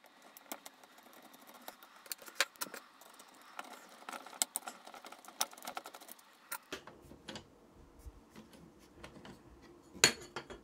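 Small screwdriver working the screws out of the front panel of a Sony ST-S1 cassette deck: a scatter of faint clicks, ticks and scrapes of metal and plastic, with one sharper click near the end.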